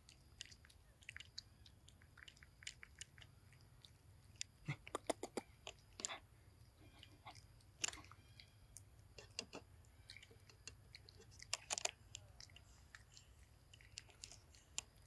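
A pig-tailed macaque chewing food close to the microphone: faint, irregular crunching clicks, louder in a few short clusters.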